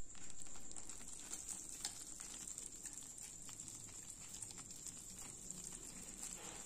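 Faint soft plops and scrapes of thick, freshly cooked ghee Mysore pak mixture sliding out of a pan and dropping into a metal tin, with a few light ticks, over a faint steady high-pitched hiss. The mixture falls in ribbons, the sign that it is cooked to the right stage.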